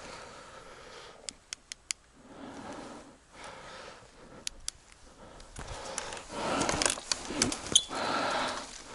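Rustling and scuffing of a person moving through dry vegetation, louder in the second half, with a quick run of four sharp clicks about a second in and two more near the middle.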